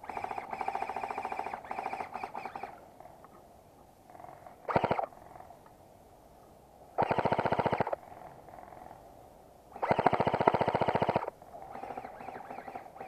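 Airsoft gun firing short full-auto bursts of rapid, evenly spaced shots, about five bursts with pauses between them.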